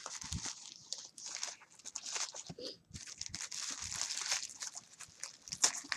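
Packaging being handled and unwrapped, a steady run of crinkling and crackling with many small clicks.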